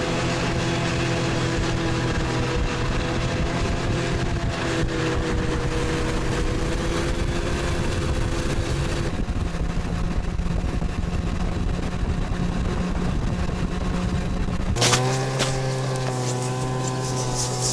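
Snowmobile engine running steadily under way, its pitch wavering a little, over a rushing noise. About three seconds before the end it changes abruptly to a different, steadier engine drone.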